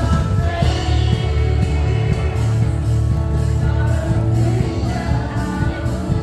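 Music with singing over a heavy, steady bass line.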